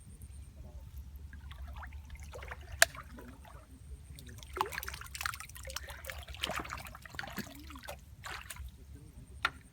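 Water trickling and splashing irregularly, with two sharp clicks, one about three seconds in and one near the end.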